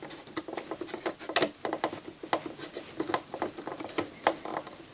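Small plastic clicks and light scraping from fingers working the parts of an open CD drive mechanism, irregular, several a second, with a sharper click about a second and a half in.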